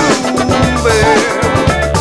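Funk music from a band's studio recording, played without vocals: drum kit keeping a steady beat under a bass line and other pitched instruments.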